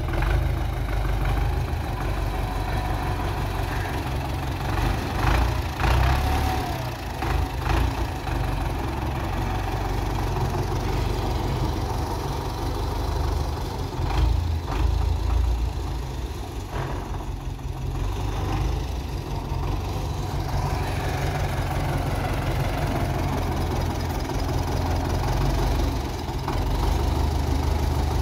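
Farm tractor's diesel engine running steadily under load, with its level rising and falling now and then, as it drags a rear blade through loose earth.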